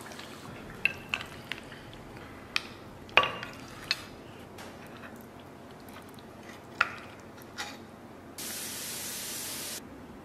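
A metal spatula clinking and scraping against the pot and a ceramic plate as saucy braised beef ribs are scooped out and served, in a run of separate clicks with the sharpest about three seconds in. Near the end a steady hiss starts abruptly, lasts about a second and a half and cuts off.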